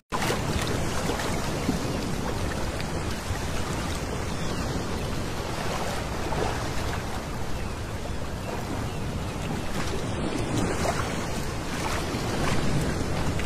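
Small waves breaking and washing up over a pebble beach: a steady surf wash that swells gently as each wave comes in. The sound cuts out for a split second at the very start.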